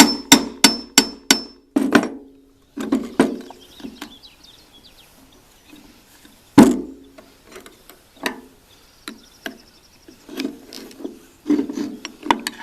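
Hammer tapping on a stuck shaft in a snowblower gearbox to drive it out: a quick run of about six ringing metal strikes at the start, a few more soon after, one hard blow about halfway through, then lighter scattered taps and clinks.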